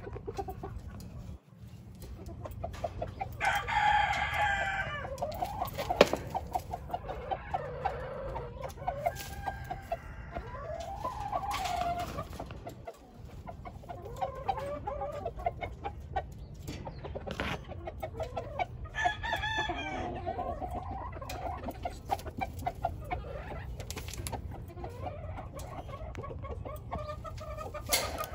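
Game roosters crowing twice, once about three and a half seconds in and again near nineteen seconds, with shorter clucking calls in between.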